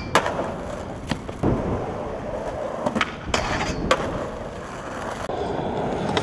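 Skateboard on concrete: urethane wheels rolling steadily, broken by about half a dozen sharp clacks of the board and trucks hitting down, with a short scrape about three and a half seconds in.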